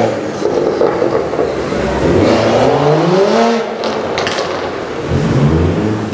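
2016 BMW M135i's turbocharged inline-six revving through a Remus cat-back exhaust: the revs climb and drop, with a quick string of crackles and pops on the overrun about four seconds in, then another blip of revs near the end.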